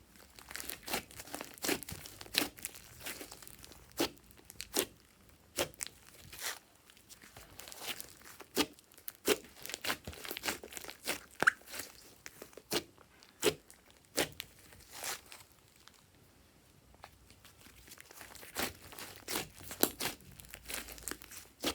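Slime being squished, pressed and stretched by hand, giving irregular sharp pops and crackles, with a quieter stretch a little past the middle.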